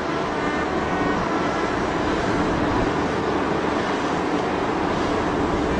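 Steady rushing outdoor noise on a ship's deck with a faint steady hum running through it, even throughout.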